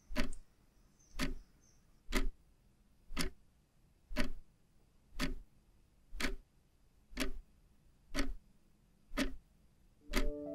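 Analog clock ticking steadily, one sharp tick a second. Music comes in near the end.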